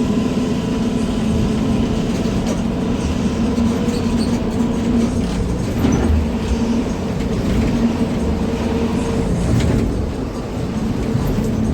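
Intercity bus engine with a modified 'ngorok' (growling) racing exhaust, heard from the rear seat inside the cabin: a steady low rumble, with a few short rattles from the bodywork.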